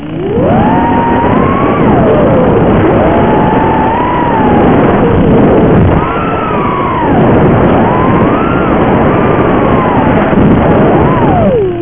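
Brushless motors and props of an Armattan Rooster 5-inch FPV quadcopter (T-Motor F40 III 2306 2750KV motors) whining in flight, the pitch sweeping up and down again and again with the throttle. It climbs from a low at the very start, after a brief throttle cut.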